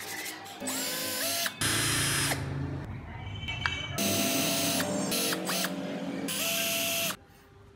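Cordless drill boring small holes into the wooden body of a model car in about four short bursts. The motor whine rises as each burst starts.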